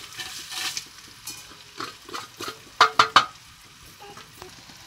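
Dried red chillies tipped into hot oil and fried onions in a metal kadai, sizzling, with a metal spoon scraping and stirring. About three seconds in come three sharp ringing metallic clanks, the loudest sounds.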